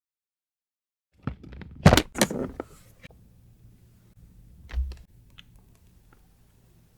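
Kitchen utensils and dishes handled on a work surface: a quick run of knocks and clatter, loudest twice about two seconds in, then a dull thump near five seconds and a few light clicks.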